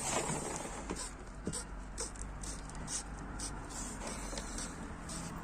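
Irregular scratching and rustling with scattered small clicks, the sound of the draught strip being handled and positioned against the sash rail's groove.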